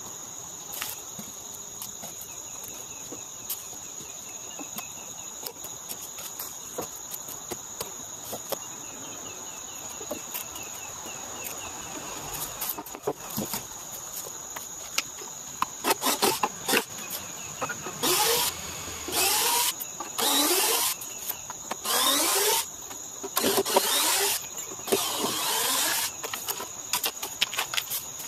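Cordless drill run in about six short bursts in the second half, each spinning up with a rising whine as it backs screws out of the ramp's deck boards. Before that there are only light clicks and knocks over a steady high insect drone.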